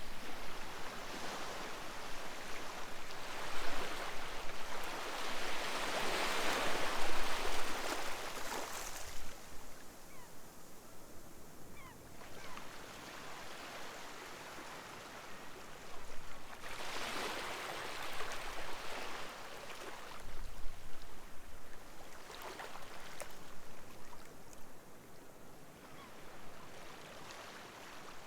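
Sea waves breaking and washing up the shore in slow surges. Each wash swells and then falls away: the biggest comes about six seconds in, another at about seventeen seconds, and smaller ones follow soon after.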